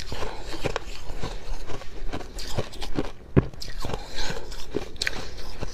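Close-miked biting and chewing of fluffy freezer frost: a dense, irregular string of dry crunches, several a second.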